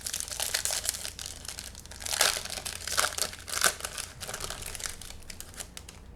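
Foil trading-card pack being torn open and crinkled by hand, a dense irregular crackling with its loudest tearing about two to four seconds in.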